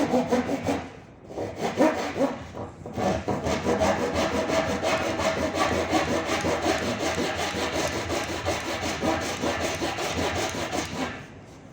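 Small hand saw with fine plywood teeth cutting through a wooden board in quick back-and-forth strokes. It pauses briefly about one second and three seconds in, then saws on steadily until it stops near the end.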